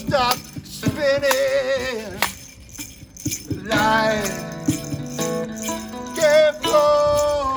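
Informal group music: voices holding long, wavering notes with heavy vibrato over a rattling shaker and hand percussion. It drops to a quieter gap a little over two seconds in, then the voices come back.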